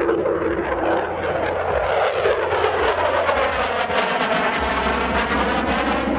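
F-16 fighter jet flying by with a loud, steady jet roar full of crackle, its tone sweeping with a phasing swish as it passes.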